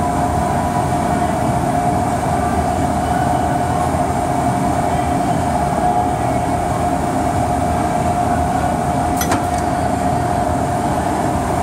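Amada Vipros 255 CNC turret punch press running with its tool turret rotating, turned over as a test after the turret shaft repair. A steady mechanical drone carries a constant whine, with a single sharp click about nine seconds in.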